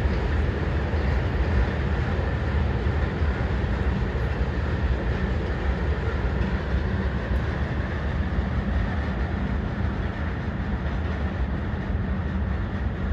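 CSX freight train's cars rolling past on the rails: a steady rumble of steel wheels on track.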